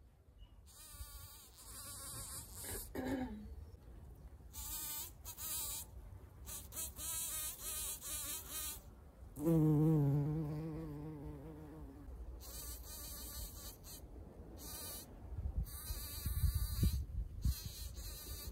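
Bumblebee buzzing around anemone flowers, a wavering drone that comes and goes. About nine and a half seconds in it buzzes close and loud for a couple of seconds, and near three seconds in a buzz drops in pitch as a bee flies past. A low rumble comes in near the end.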